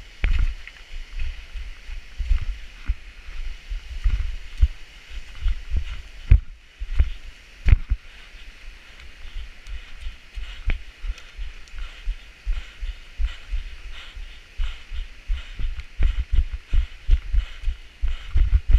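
Footsteps over loose rock and scree, an irregular run of low thumps with a few sharp clicks, over the steady rush of a river.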